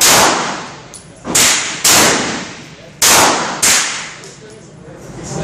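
12-gauge shotgun firing birdshot in an indoor range: five sharp reports, the last four in two close pairs about half a second apart, each with a long echoing tail.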